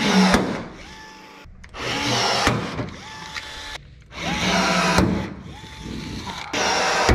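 Cordless power tool working the aluminum deck framing, whirring in short runs three or four times, each spinning up and then holding. A sharp click ends two of the runs.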